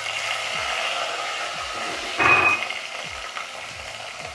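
Raw mutton sizzling as it lands in hot coconut oil in an aluminium pressure cooker: a steady frying hiss. About two seconds in there is a brief louder clink with a short ring.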